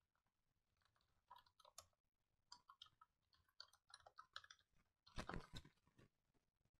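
Faint computer-keyboard typing: scattered key clicks, with a louder knock a little after five seconds in.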